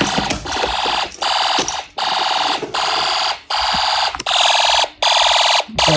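Fire alarm horn on a Snap Circuits fire alarm system sounding after a pull station has been pulled: a buzzy tone in even pulses, a little over one a second. About four seconds in, the tone turns brighter.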